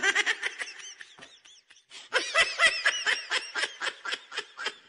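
Laughter sound effect after a joke's punchline: two bouts of rapid, high-pitched giggling, the second and longer one starting about two seconds in.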